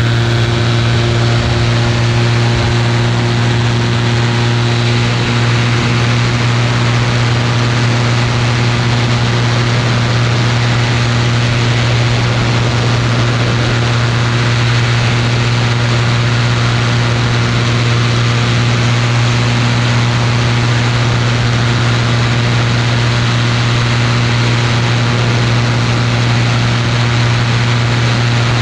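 Ultralight aircraft's engine and propeller running at a steady pitch, a constant loud drone with an even rushing hiss over it.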